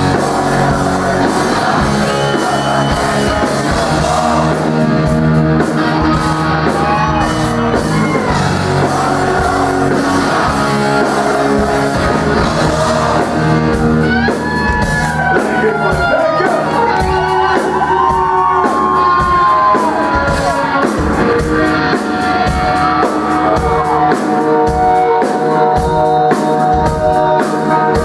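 Live rock band playing loudly: electric guitars, bass and drums, with a singer's voice over them.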